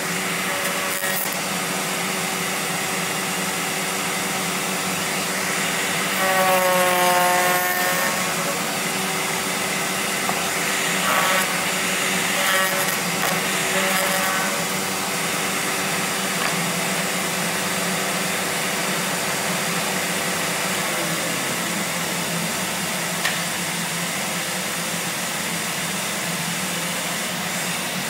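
Bosch POF 1400 ACE router running steadily under a benchtop router table, with a louder cutting noise as a wooden board is fed against the bit, about six seconds in and again from about eleven to fifteen seconds in.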